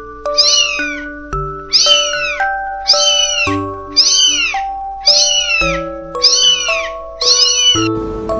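Very young kitten mewing over and over, about two short, high-pitched mews a second, each rising then falling, over background music with slow melodic notes.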